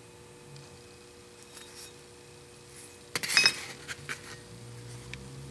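Metal parts clinking and knocking together as they are handled: a quick cluster of ringing clinks about three seconds in, followed by a few lighter taps.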